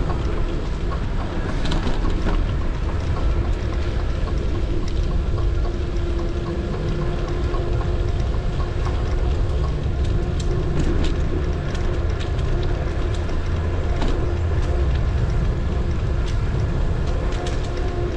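Bicycle rolling over asphalt with wind buffeting the camera microphone: a loud, steady low rumble with a faint steady hum. Scattered light ticks and rattles from the bike come and go, more of them around the middle and near the end.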